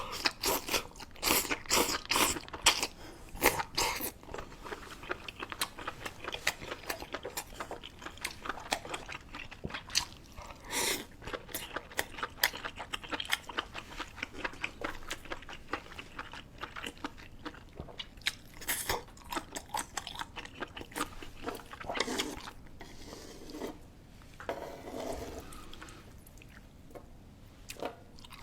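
A person chewing and biting food close to the microphone, with many sharp wet clicks and crunches, densest in the first few seconds.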